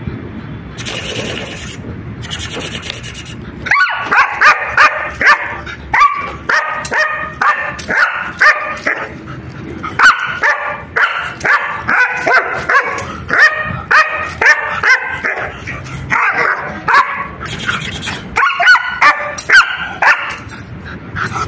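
German Shepherd barking in a long rapid run, about two or three barks a second, starting about four seconds in.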